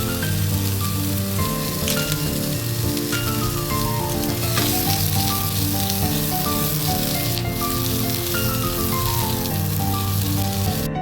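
A steady sizzling hiss, like food frying in a pan, under background music of rising and falling piano-like note runs; the sizzle cuts off suddenly just before the end while the music continues.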